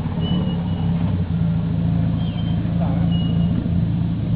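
Off-road Jeep Wrangler TJ's engine running steadily as the Jeep crawls slowly along a dirt track, a continuous low drone with no revving.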